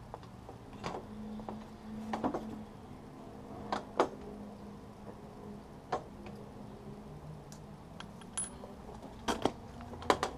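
Scattered metallic clicks and clinks of tools and hardware being worked at a motorcycle's front brake caliper, with a low steady hum for a few seconds after the start.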